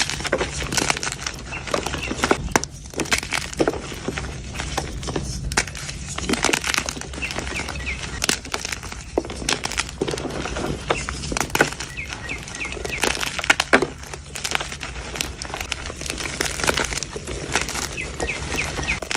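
Blocks of gym chalk being crushed and crumbled close to the microphone: a dense, irregular run of soft crunches and crackles.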